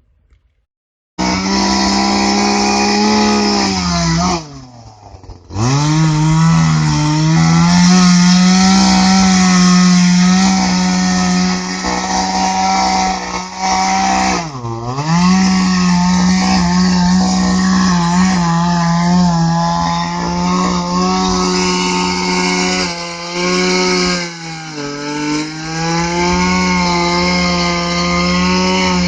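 Chainsaw running at high revs while cutting into a tree trunk. It starts abruptly about a second in, and its engine speed sags sharply and recovers twice, near five and fifteen seconds in, and a little again near the end.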